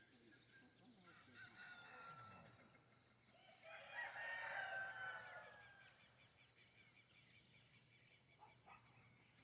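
A rooster crowing once, faintly, about three and a half seconds in, with fainter fowl calls before it.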